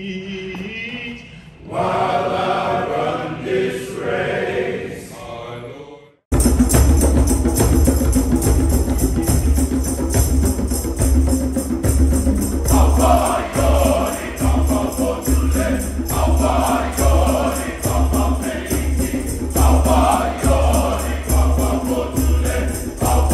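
A men's glee club singing together, cutting off suddenly about six seconds in; then a recorded music track with a steady bass beat.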